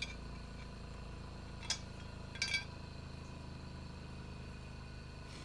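Light metal clinks as a steel lawnmower blade is handled for a balance check: one clink about 1.7 s in and a quick double clink around 2.5 s, over a low steady hum.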